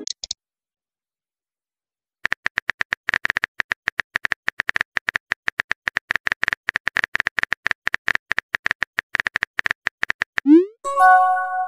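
Phone keyboard tap clicks, rapid and uneven, run for about eight seconds as a message is typed. Near the end a rising whoosh and a short electronic chime sound as the message is sent.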